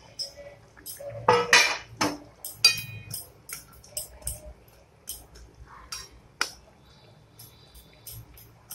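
Flat metal spatula knocking and scraping against a metal kadai while stirring a thick curry: a run of short clinks, busiest in the first few seconds, then sparser.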